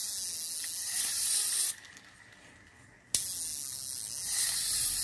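A Daiwa 4000-size spinning reel being cranked by hand, its rotor and gears whirring with an even hiss. It runs smoothly. The cranking stops about two seconds in, a sharp click comes just after three seconds, and the whirring starts again.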